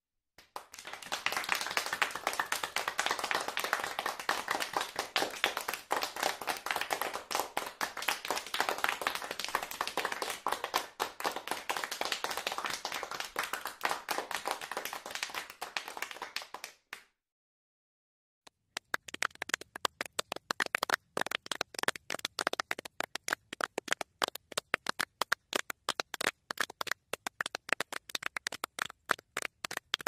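Crowd applause, a dense and even clapping that stops abruptly about seventeen seconds in. After a short silence, sparser clapping begins, with separate claps standing out.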